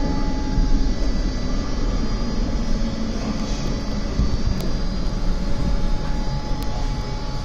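Subway train heard from inside the car as it slows into an underground station: a steady rumble of wheels on rail with a motor whine that falls in pitch over the first few seconds.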